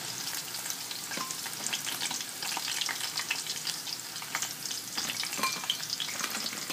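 Hot oil sizzling and crackling on freshly deep-fried atsuage (thick fried tofu): a steady hiss dotted with many small pops.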